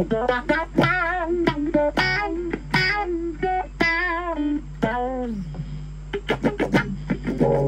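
Clean electric guitar played through a Blackstar ID:Core Stereo 10 V2 practice amp with its auto-wah effect on. Single notes and short phrases are picked, some with wavering vibrato and one bent note about five seconds in, and the wah opens as the strings are picked harder. A steady low hum sits underneath.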